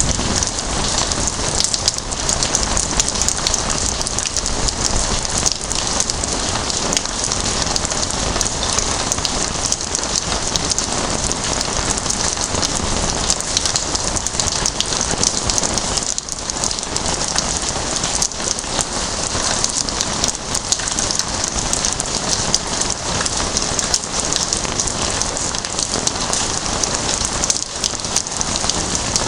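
Rain falling steadily, a dense, even hiss of many drops.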